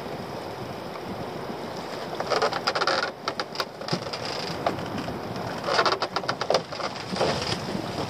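Wet pot rope being hauled by hand over the side of a small open boat, with two spells of water pattering and splashing off the line, over steady wind and sea noise.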